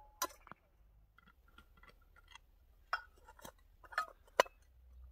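A steel vacuum flask being opened: its metal cup and screw stopper are twisted off and handled, giving a scattering of sharp clicks and small knocks, the loudest near the end.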